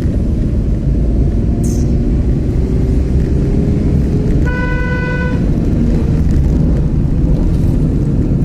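Car driving, heard from inside the cabin: a steady low engine and road rumble, with a single horn toot lasting just under a second about halfway through.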